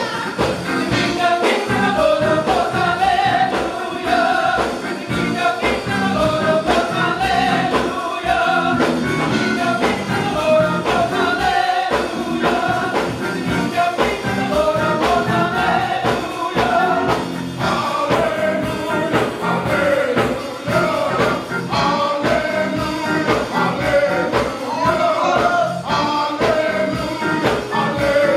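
Gospel choir singing in full voice over a band, with a steady driving beat.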